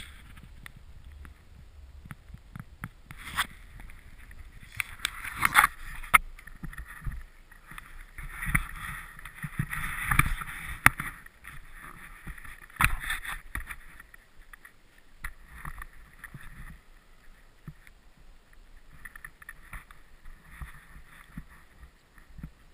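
Handling noise from a hand-held action camera: knocks, scrapes and clothing rustle, in two louder spells about five seconds in and around ten seconds, over a low wind rumble.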